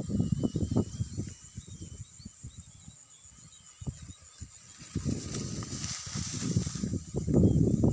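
Wind buffeting the microphone in gusts, heaviest in the first second and again over the last three seconds, with faint chirping of small birds in the background.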